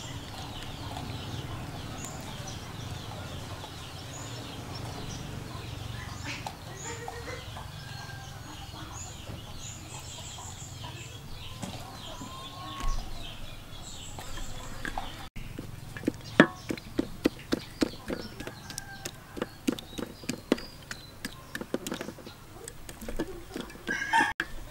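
Chickens clucking and calling in short bursts. In the second half a rapid series of sharp taps or knocks, several a second, comes in louder than the birds.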